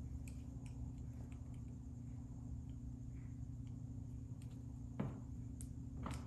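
Faint scattered clicks of a hand crimping tool working a large terminal onto a heavy 14-gauge wire, over a steady low hum. Two slightly louder clicks come near the end.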